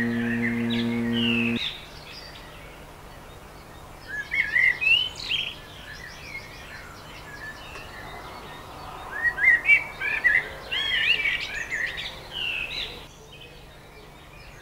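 A held musical chord ends abruptly about a second and a half in; then wild songbirds chirp and sing in short bursts, over a faint steady hiss.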